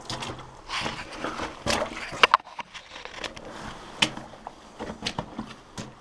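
Footsteps on wet ground and irregular scrapes, shuffles and clicks of a person moving through a narrow cave tunnel, with a few sharper knocks about two and four seconds in.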